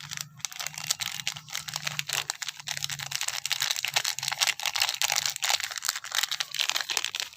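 Plastic sachet crinkling and crackling in quick, irregular little clicks as ground pepper is poured from it.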